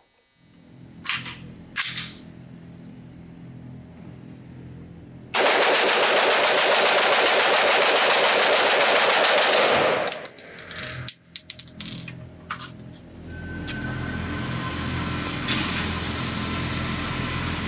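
Springfield Armory Saint AR-15 fired as fast as the trigger allows, a 30-round magazine dumped in one unbroken string of about four and a half seconds, with echo from the indoor range. A few clinks and knocks follow.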